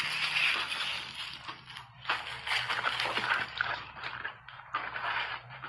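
Crunching of refrozen ice being chewed, with a spoon scraping and scooping crushed ice in the mold; dense crunches with short pauses.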